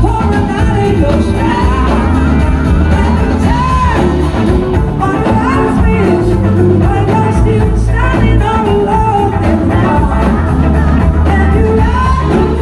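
Live blues-rock band playing: electric guitars and drums, with a woman singing lead.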